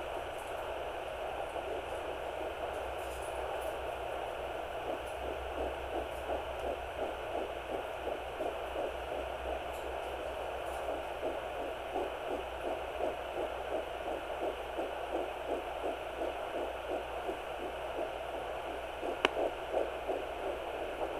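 Fetal heartbeat at nine weeks picked up through a Sonoline B handheld Doppler: a fast, regular pulsing over a steady hiss. A sharp click comes near the end.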